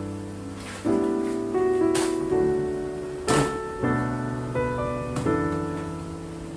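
Background piano music, gentle notes changing about every half-second, with a couple of short knocks or clatters about two and three seconds in.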